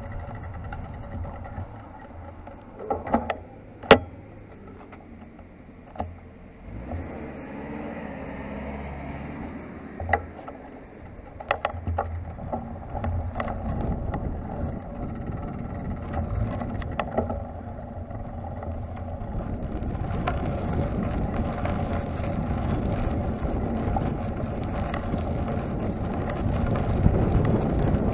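Rumble of a small vehicle's wheels rolling over brick paving and asphalt, with wind on the microphone, a faint steady whine underneath, and sharp knocks as it jolts over bumps. The rolling noise grows louder and brighter in the last third.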